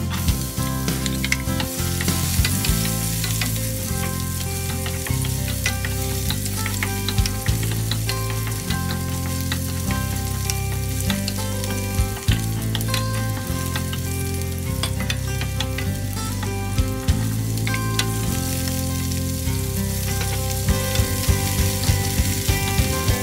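Chopped garlic and spring onion sizzling in hot oil in a nonstick frying pan, stirred with a wooden spatula, with small clicks and scrapes of the spatula against the pan throughout.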